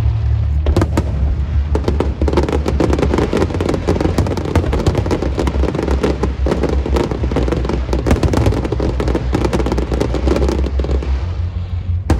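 Fireworks set off in a dense, rapid string of crackling bangs that starts about two seconds in and dies down near the end, over a steady low rumble.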